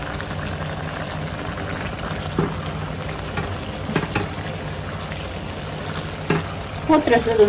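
Mushroom and fish curry cooking in a pot on the stove with a steady hiss of bubbling and sizzling, stirred with a silicone spatula that knocks lightly against the pot a few times.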